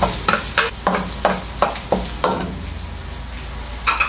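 Chopped garlic sizzling in hot oil in a nonstick wok while a wooden spatula stirs and scrapes it, about three strokes a second. The stirring stops about halfway through, leaving a steady sizzle.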